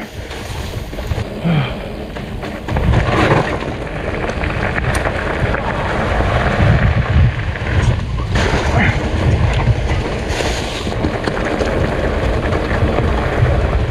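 Mountain bike ridden on a dirt trail: wind buffeting the camera microphone over the steady rumble of the tyres on rough ground, with scattered knocks and rattles.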